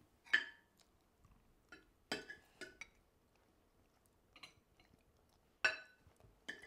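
Metal cutlery clinking against ceramic bowls and a serving plate at a dinner table: about eight scattered light clinks, the sharpest just after the start and near the end.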